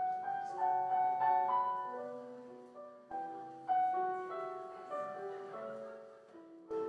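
Slow solo piano music: notes and chords are struck every second or so and left to ring and fade.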